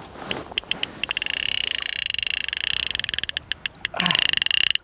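Fishing reel's drag clicking in a fast, ringing rattle as a large hooked Wels catfish pulls line off. A few single clicks come first, then a long run of about two seconds, a short stutter, and another run near the end.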